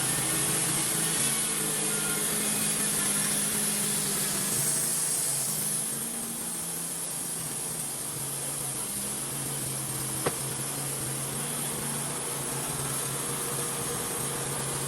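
Wood-Mizer band sawmill running steadily, its engine humming as the band blade saws through a log. The high hiss eases off about six seconds in, and a single sharp click comes about ten seconds in.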